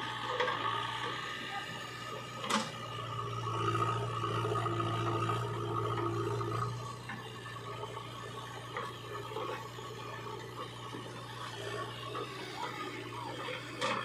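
JCB 3DX backhoe loader's diesel engine running under working load, louder for a few seconds in the middle as the loader works, with a sharp metal knock about two and a half seconds in and another near the end.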